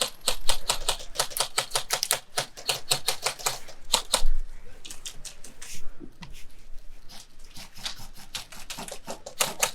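Airsoft gunfire: a quick run of sharp cracks for the first few seconds, then scattered single shots.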